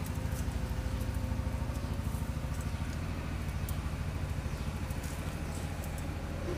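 A steady low drone with a fast flutter, like an idling engine, is the loudest thing. Above it come faint scattered pops and clicks from pomfret fish curry simmering in an aluminium wok over a wood-fired clay stove.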